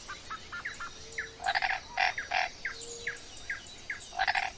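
Jungle bird ambience: quick high chirps scattered throughout, with louder rough calls in groups of two or three, about half a second apart, near the middle and again near the end.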